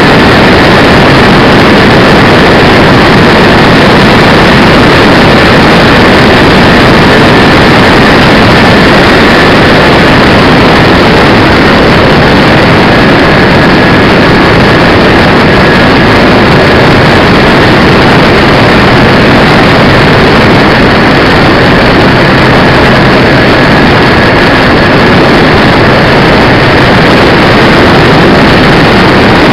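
Engines and propellers of a radio-controlled four-engined DC-6B scale model in flight, heard from a camera on board the plane: a very loud, steady drone mixed with rushing air. A faint high whine runs through it.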